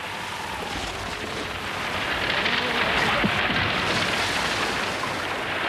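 Rough sea waves breaking and rushing around the stern of a papyrus reed boat, a loud surging wash that swells to a peak about three seconds in and then eases.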